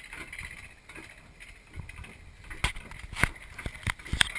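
Bobsled ride car running down its track, a steady rolling rumble with several sharp clacks in the second half.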